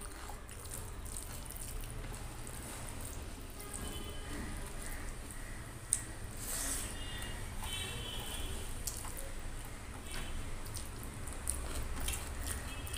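Close eating sounds: wet squishing as fingers mix rice and kadhi on a steel plate, then mouth sounds of eating the handful, with a sharp smack just before six seconds in.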